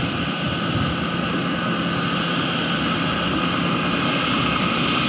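Kaset Phatthana 'Ngern Mee' rice combine harvester's engine running steadily as it works through the field, a constant machine drone with a steady hum.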